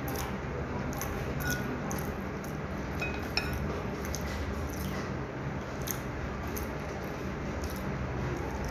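Fingers picking meat off a small bone over a bowl, with small scattered clicks and one sharper clink about three and a half seconds in. A steady low hum runs underneath.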